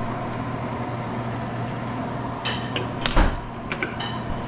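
Snapper fillets frying in a very hot pan of olive oil with blackening seasoning: a steady sizzle over a low hum, with a few clinks and knocks of a utensil against the pan between about two and a half and four seconds in.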